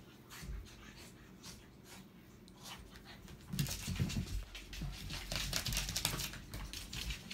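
A puppy playing and rolling on a shag rug: soft snuffles and small scuffling clicks, then louder rustling and scrabbling from about halfway through as it scrambles off the rug.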